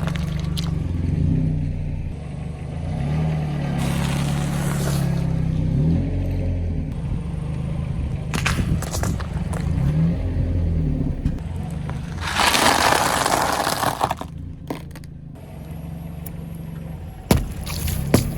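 A car engine running at low speed while its tyres roll over and crush objects: bursts of crunching and cracking, the loudest about two-thirds of the way through, and a few sharp snaps near the end.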